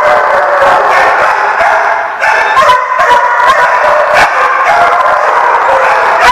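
Dogs barking and yipping almost without pause, the sharp barks mixed with longer, held, howl-like calls that shift in pitch.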